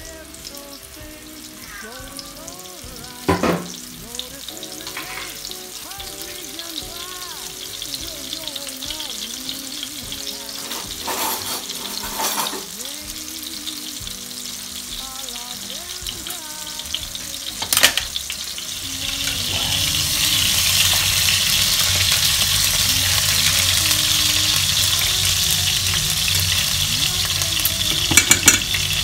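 Floured salt cod fillets frying in oil in a pan. The sizzle is low at first, broken by a few sharp knocks, and grows markedly louder and steadier about two-thirds of the way in as the oil heats. A quick run of clicks comes near the end.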